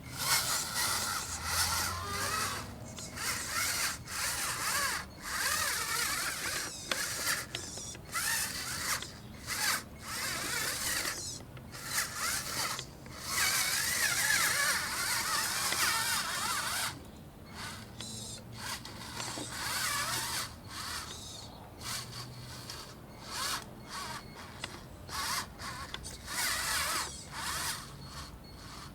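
Twin electric motors and gear drive of a four-wheel-drive RC rock crawler whining in stop-start bursts as the throttle is blipped and held, the pitch wavering with the load of climbing.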